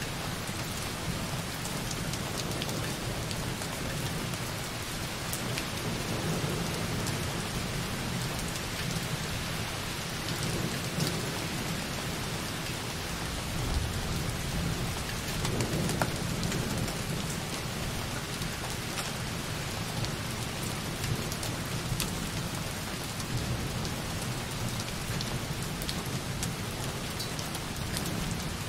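Light rain, its drops hitting a window very softly and steadily, with distant thunder rumbling low in the background and swelling a few times.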